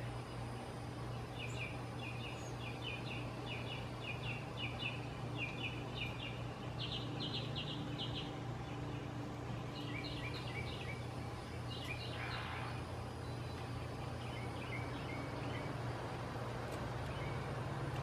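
Bird chirping in quick runs of short, high, repeated notes, in three spells separated by pauses, over a steady low hum.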